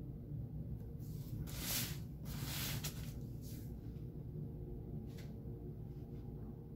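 A few brief rustling noises, the strongest between about one and a half and four seconds in and a shorter one about five seconds in, over a steady low hum.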